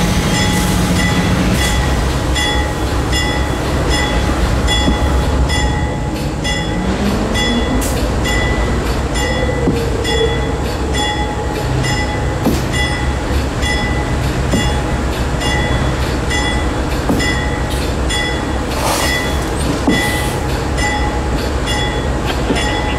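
Three GE C40-8 diesel-electric locomotives working under load at slow speed, a steady deep diesel rumble with a note that rises over a few seconds about a quarter of the way in. Over it a bell rings steadily, about twice a second.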